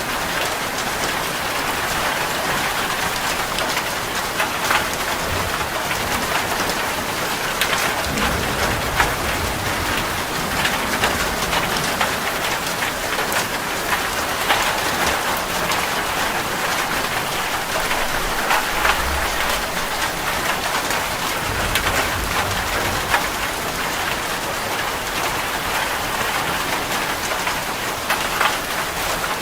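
Steady rain falling, with many individual drops ticking sharply on a hard surface over an even hiss, and a few brief low rumbles.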